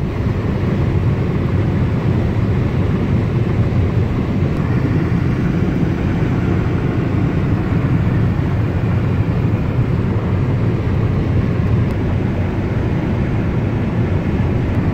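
Steady drone of a car travelling at highway speed, heard from inside the cabin: road and tyre noise with engine hum, heaviest in the low end.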